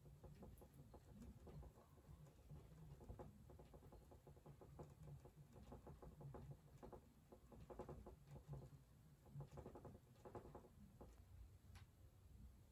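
Near silence broken by faint, quick, irregular strokes of a paintbrush scrubbing paint onto a stretched canvas, over a low room hum.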